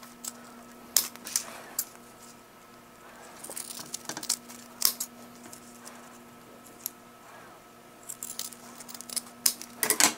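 Irregular sharp clicks and short snips of scissors and handling as the end of a cork handle strip is trimmed, over a faint steady hum.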